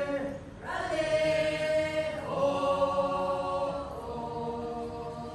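A group of men and women singing together in chorus, in long held notes phrase by phrase.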